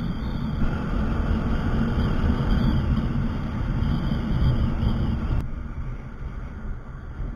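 Wind buffeting the microphone of a Bajaj motorcycle riding at road speed, with the bike's engine and tyre noise underneath. The noise eases somewhat about five seconds in.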